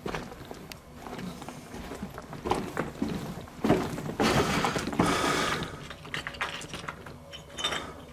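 Irregular scuffing and crunching with small knocks, like footsteps over rough, stony ground, loudest from about four to five and a half seconds in.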